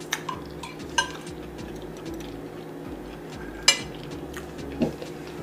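Cutlery clinking against a plate a few times while eating, the sharpest clink a little past halfway, over a low steady hum.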